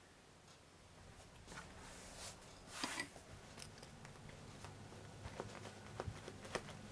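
Soft rustling of a rain jacket's fabric with a few small clicks as it is fastened by hand, over quiet room tone with a faint low hum.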